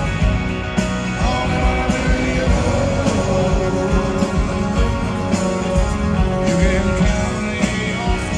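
Live pop-rock band playing through a concert sound system: a sung lead vocal over strummed acoustic guitar and a steady drum beat.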